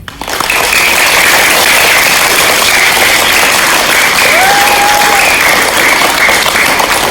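Audience applauding in a large hall, starting the moment the students' music ends and holding steady throughout. A single short high call stands out above the clapping about four seconds in.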